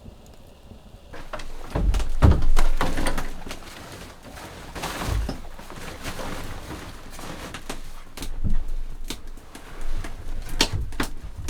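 Irregular knocks, clicks and a few heavy thuds of things being handled and set down in a small wooden room.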